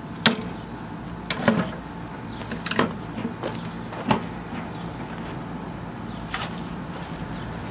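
Wooden sewing machine cabinets knocking and bumping as they are lifted, carried and set down: about six separate sharp knocks at uneven spacing, the loudest in the first couple of seconds.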